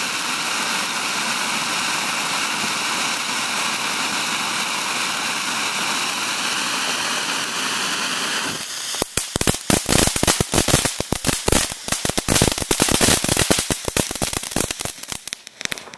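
Ground fountain firework spraying sparks with a steady, loud hiss, switching about nine seconds in to rapid crackling pops that die away near the end.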